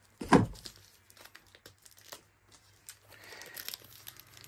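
A sharp knock just after the start, then light clicks and crinkling rustle of plastic packaging and game components being handled, which swells about three seconds in.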